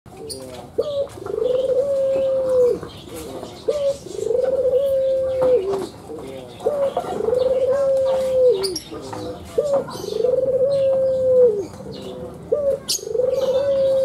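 Albino ringneck dove (Barbary dove) cooing: five two-part coos about three seconds apart, each a short note followed by a long rolling coo that drops off at its end. Faint chirps from other small birds sound in the background.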